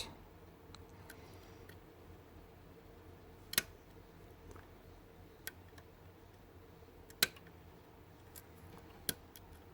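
Scattered sharp clicks and fainter ticks as a lock pick works the pins of a challenge lock under tension, about four distinct clicks a couple of seconds apart over a faint steady hum. The lock is very crunchy, its pin-in-pin pins giving noisy feedback.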